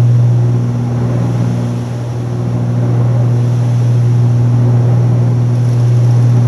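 Cessna 310Q's twin piston engines and propellers droning steadily in flight, heard inside the cabin: a deep constant hum with a hiss over it.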